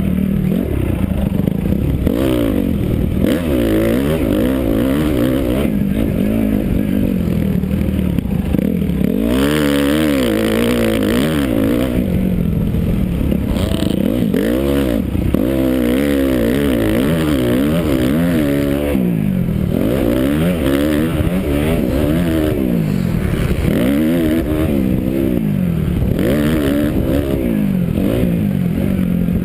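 Motocross bike engine revving up and dropping back over and over as the rider accelerates, shifts and rolls off through the turns, heard from a helmet camera.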